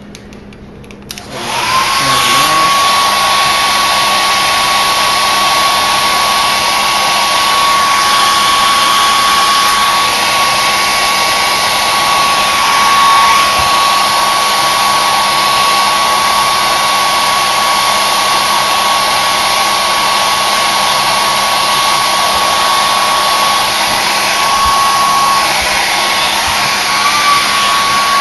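Handheld hair dryer switched on about a second in and running steadily: a loud rush of air with a motor whine that rises quickly as it spins up, then holds steady.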